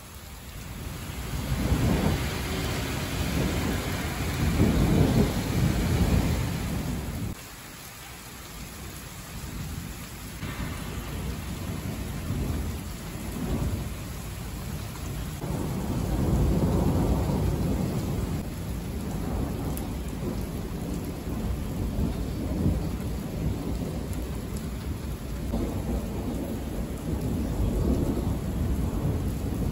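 Steady rain with thunder rolling in long, low rumbles, the loudest in the first few seconds and others around the middle and near the end.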